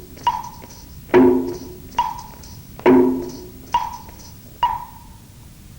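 Percussion accompaniment for the exercise routine. Wood-block knocks, each with a brief ringing tone, alternate with fuller, deeper strikes at a steady beat of a little more than one a second. The beat stops about four and a half seconds in.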